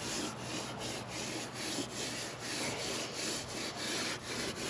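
Moist sponge rubbed back and forth over fresh, sandy mortar on stone, smoothing it out: a gritty scrubbing in even strokes, about three a second.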